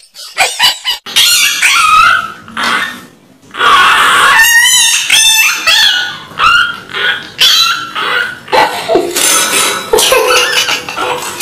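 Dogs vocalising: a run of short, high-pitched whines and yips, some of them wavering in pitch.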